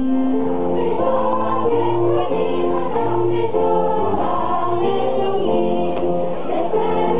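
Children's choir singing a song in an even rhythm of short notes, with a lower accompaniment beneath the voices.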